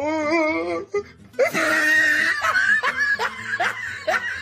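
A person laughing: a drawn-out high-pitched laugh, a brief pause, then a run of quick giggles.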